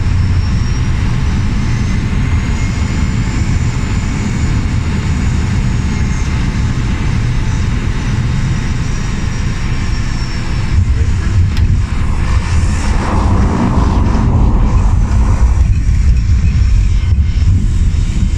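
De Havilland Canada DHC-3 Otter floatplane's engine and propeller running steadily as it comes in low and lands on the water. The sound becomes rougher and louder after about ten seconds.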